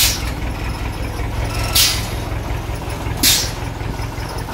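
Small diesel flatbed truck's engine running slowly as it pulls in, with three short, sharp hisses.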